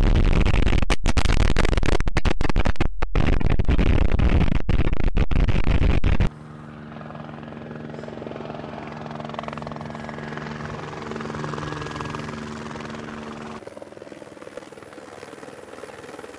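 A loud, even rushing noise that cuts off suddenly about six seconds in. It is followed by the steady hum of a helicopter's engine and rotor, which drops in level near the end.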